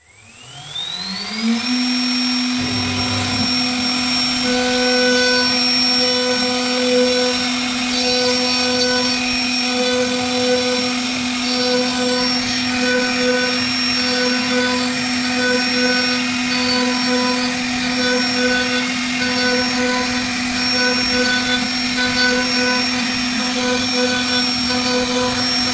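CNC router spindle spinning up with a rising whine over the first couple of seconds, then running steadily at a high whine as its cutter carves a wooden staircase pillar.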